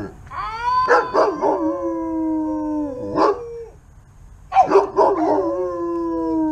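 Dog howling: two long howls, each rising in pitch at the start and then held steady, with a short break about four seconds in.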